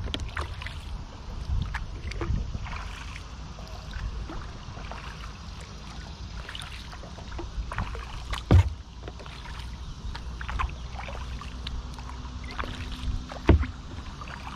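Kayak paddling on calm water: paddle blades dipping and dripping with small splashes and trickles beside a Wilderness Systems Tsunami 120 hull, over a steady low rumble. Two sharp knocks stand out, a little over halfway and near the end.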